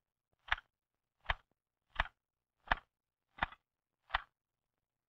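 Manual typewriter keys struck one at a time: six crisp, evenly spaced strokes about two-thirds of a second apart.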